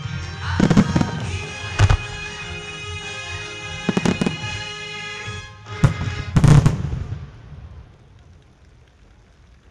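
Aerial firework shells bursting in a series of sharp booms, a handful over the first seven seconds, some in quick pairs, heard over orchestral music. The booms stop about three-quarters of the way in and the music dies down.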